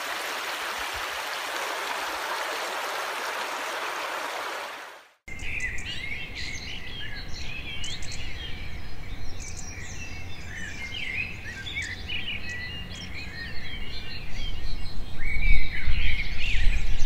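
Running water from a creek hisses steadily for about five seconds, then stops abruptly. Many birds chirp and trill after that, over a low rumble that grows louder near the end.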